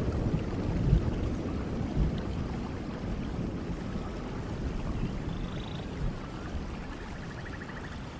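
A steady, uneven rushing noise like running water, with a few faint high chirps and a short buzzy trill in the second half.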